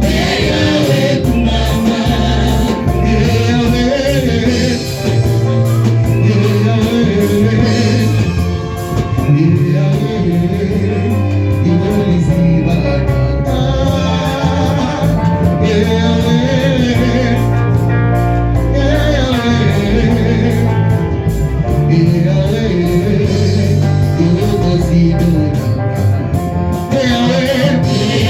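Gospel worship music: voices singing over instruments with a strong, steady bass.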